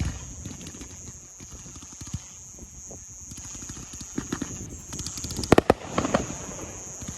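Fireworks going off: scattered crackles and pops, with two sharp bangs about five and a half seconds in.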